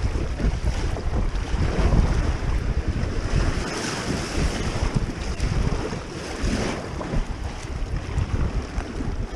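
Fast, muddy creek water rushing and splashing against the bow of an inflatable packraft running a riffle, with wind buffeting the microphone. The splashing swells about four seconds in and again near seven seconds.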